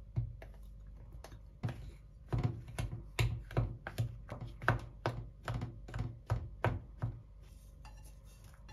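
Plastic bench scraper chopping cubes of butter into flour in a bowl, cutting the butter in for a dough: a few light taps, then a run of sharp chopping strikes against the bowl at about three a second that stops about seven seconds in.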